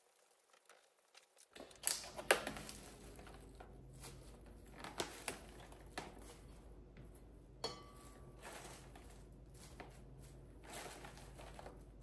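Soft rustling and crinkling of loose spring-mix salad leaves lifted by hand from a clear plastic container and dropped into a bowl, with a few sharp light clicks and knocks from the container.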